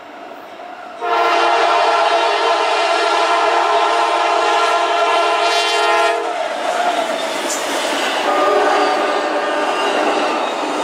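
CSX diesel locomotive's air horn sounding one long chord for about five seconds, starting suddenly a second in. After it cuts off, the train keeps rolling by: the locomotive and Amtrak Superliner passenger cars passing, wheels running over the rails.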